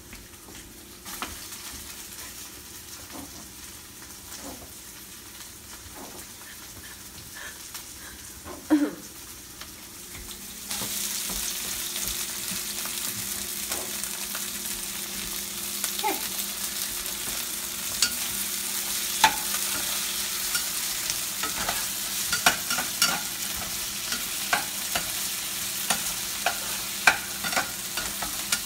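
Diced tomatoes, green peppers and onions sizzling in oil in a frying pan, the sizzle jumping much louder about ten seconds in, just after a single loud knock. Through the second half a spatula stirs them, with many sharp clicks and scrapes against the pan.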